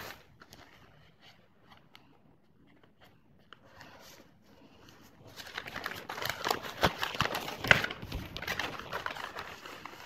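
Paper crinkling and rustling as a folded, freshly cut katori pattern is unfolded and smoothed flat by hand. Faint handling clicks at first, then a denser crackle from about halfway that fades near the end.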